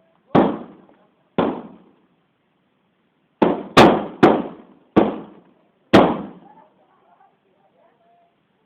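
Firecrackers going off: seven sharp bangs over about six seconds, each trailing off in an echo, with four coming close together in the middle.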